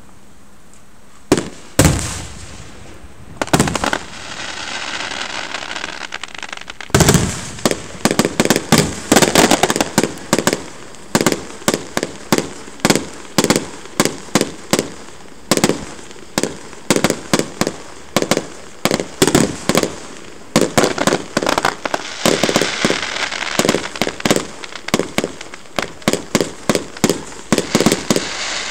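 Fireworks display. After a second or so come a few single booming shell bursts with crackling. From about seven seconds in, a rapid barrage of aerial shells bursts about two a second, with crackling stars in between.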